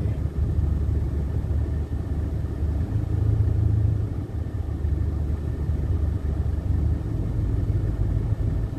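Vehicle engine idling: a steady low hum that swells and eases in stretches of a few seconds.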